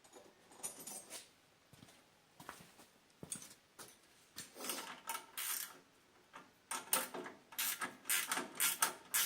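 Irregular metallic clicks and rattles from hand work on the snowblower's kill-switch lever and its bolt. The clicks come faster and louder in the second half, about two to three a second.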